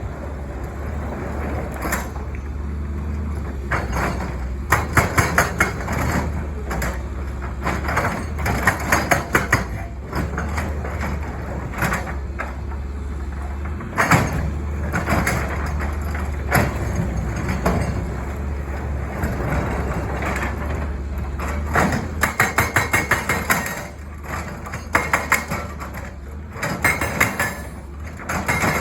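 CAT 320 excavator's diesel engine running steadily under a hydraulic breaker hammering in short bursts of rapid blows, several a second, with pauses between bursts.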